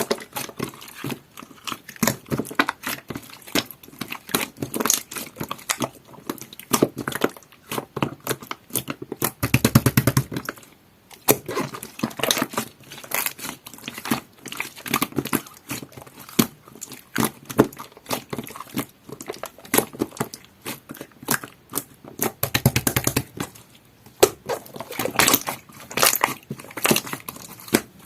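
Hands squishing, pressing and stretching a jelly-textured slime, giving a steady run of sticky clicks and small pops. Two denser crackling stretches come about ten seconds in and again near twenty-three seconds.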